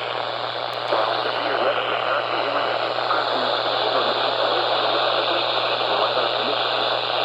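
Radio receiver audio with heavy static hiss, faint indistinct speech underneath and a steady low hum.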